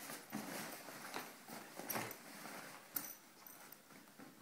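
Fabric rustling and soft knocks as bags are rummaged through in an open suitcase and a backpack is pulled out, with one sharper click about three seconds in.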